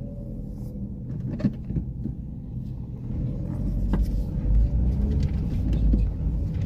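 Car engine idling at a standstill, heard from inside the cabin, then a low rumble rising about three and a half seconds in as the car pulls away.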